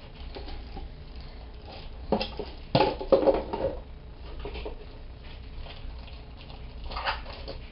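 Soft scratchy brushing and handling noises from an eyeshadow brush working powder shadow onto an eyelid close to the microphone, with a louder clatter about three seconds in.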